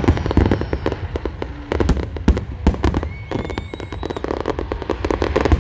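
Fireworks display: a dense run of crackling pops with several loud bangs near the middle, and rising whistles a little after.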